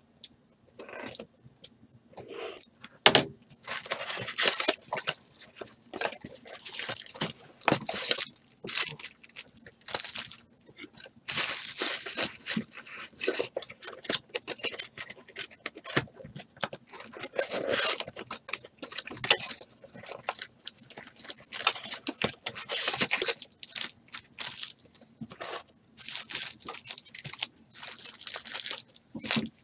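Cardboard trading-card box and foil card-pack wrappers being handled, with irregular bursts of rustling, crinkling and tearing throughout. A sharp knock about three seconds in is the loudest sound.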